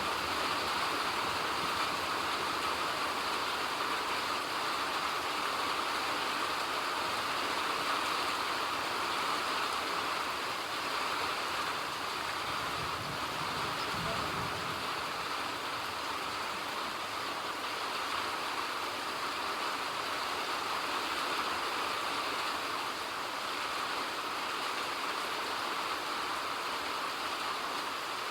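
Steady rain falling, an even hiss without separate drops or pauses.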